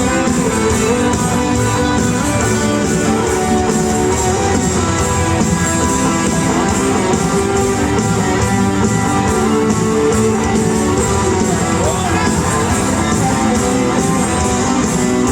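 Rock band playing live through a large arena's PA, an instrumental passage led by guitars over bass and drums with a steady beat.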